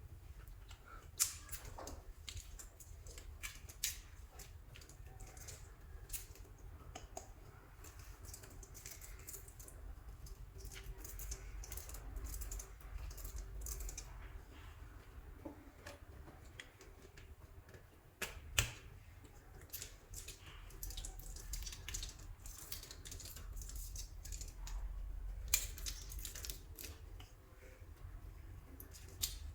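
Hands working soft clay: irregular sticky clicks and crackles as it is squeezed and pulled, with a few sharper snaps.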